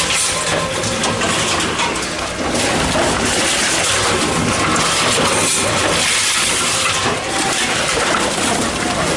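Tomra T-63 HCp reverse vending machine running: a steady low motor hum under a dense, noisy rattle of plastic bottles being taken in, with scattered clicks.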